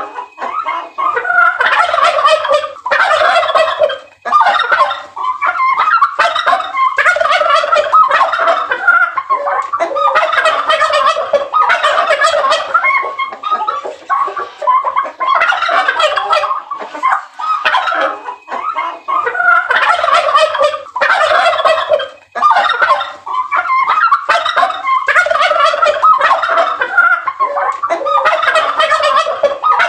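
Male domestic turkeys gobbling again and again, one rattling call after another with hardly a pause. This is breeding-season gobbling by toms courting hens.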